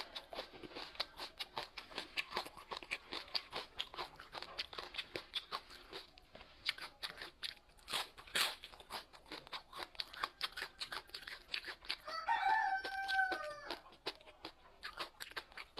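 Crunchy food being bitten and chewed close to the microphone, a rapid run of crisp crunches. A rooster crows once in the background near the end.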